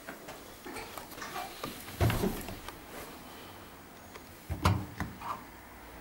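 Zanussi ZWF12170W washing machine's front door being opened and handled: a scatter of light clicks and knocks, with two louder thumps, one about two seconds in and one a little before five seconds.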